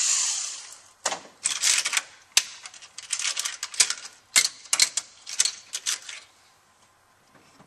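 A power driver whirs briefly, spinning out a valve-body bolt, then fades out. After that come many sharp metallic clicks and clatters as loose steel bolts are handled and set down on a metal bench.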